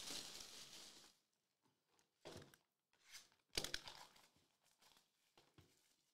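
Plastic shrink wrap being torn and crumpled off a sealed trading-card box. A crinkling rustle fades out in the first second, then come a few short crinkles and rips, the loudest about three and a half seconds in.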